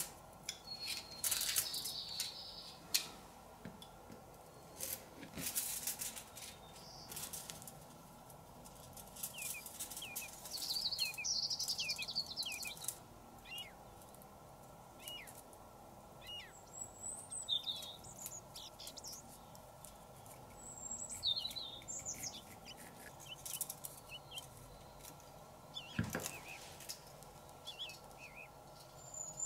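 Thin aluminium foil crinkling and rustling in many short, irregular bursts as a strip is cut with a utility knife along a steel ruler and then pressed through two meshing plastic gears to crimp it into pleats.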